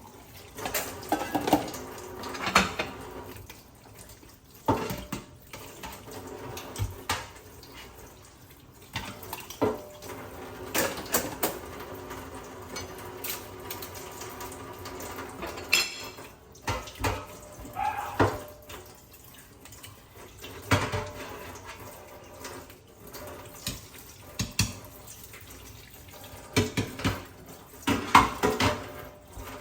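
Dishes and metal utensils clinking and clattering in a kitchen, with scattered knocks, over water running from a tap.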